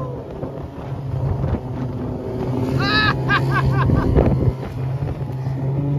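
Tracked flatbed snow vehicle running steadily, its low engine drone heard from inside the cab. About three seconds in comes a short run of high chirps, and just after four seconds a single thump.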